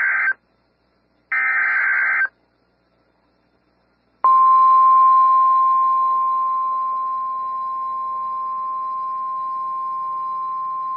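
Emergency Alert System SAME header ending: the tail of one short digital data burst, then one more full burst about a second later. After about two seconds of silence, the NOAA Weather Radio 1050 Hz warning alarm tone starts, one steady high tone that eases slightly in level and then holds.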